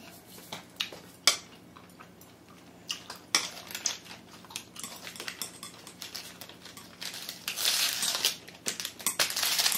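Metal chopsticks clicking and scraping against a serving tray and a small sauce bowl while picking up and dipping pieces of steamed squid, with a few sharp clicks. Near the end there is a louder stretch of crackly rustling.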